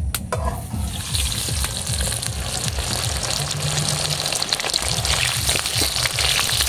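Small boiled potatoes tipped into hot mustard oil in an aluminium kadai, with a brief clatter as they go in, then the oil sizzling and crackling steadily as they fry.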